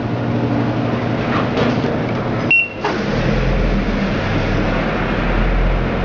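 Samsung top-load washing machine running under test on an adapted control board: a steady mechanical hum from its motor and pump. About two and a half seconds in there is a short high beep and a brief dip in the sound.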